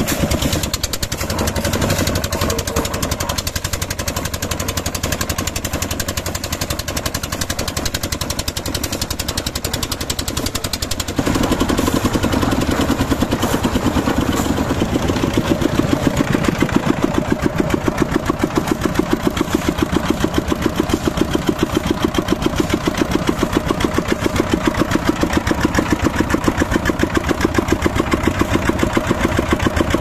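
Small stationary engines running steadily with a rapid, even beat, powering a concrete mixer and a concrete lift winch. About eleven seconds in the sound turns abruptly louder and heavier, with a stronger pulse.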